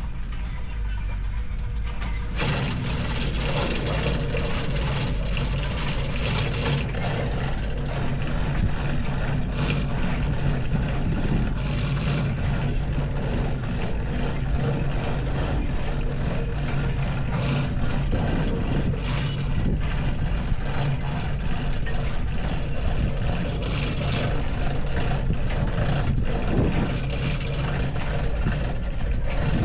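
Heavy engine running steadily, with a harsher, hissing layer joining about two seconds in.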